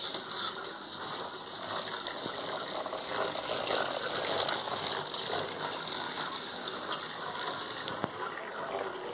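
Plastic wheels of a child's tricycle rolling over rough concrete, a steady rattling noise.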